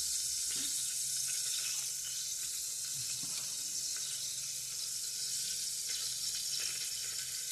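Cumin seeds sizzling in hot oil in an aluminium pressure-cooker pot on a gas stove: a steady hiss.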